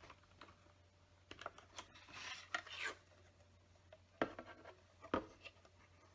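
LEGO plastic bricks being handled and fitted together: scattered sharp clicks and light rattles, with a short stretch of scraping about two seconds in.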